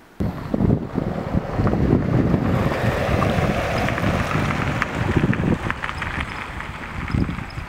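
Wind buffeting the microphone: a loud, gusty low rumble that cuts in suddenly just after the start.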